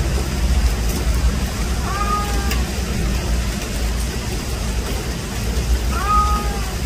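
Rain falling with a steady low rumble underneath, and a cat meowing twice, about two and six seconds in, each call a short rise then a held note.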